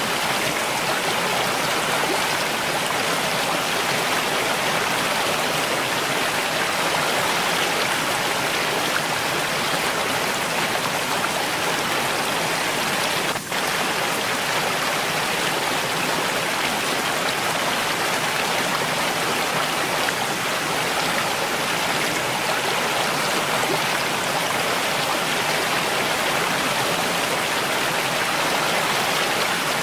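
Mountain stream flowing, a steady even rush of water with its brightest hiss in the upper-middle range; the sound dips for an instant about halfway through.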